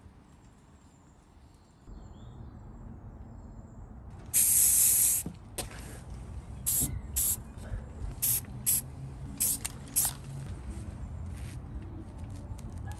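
Aerosol spray-paint can spraying metal casters: one loud hiss of about a second, about four seconds in, then a string of short hissing bursts.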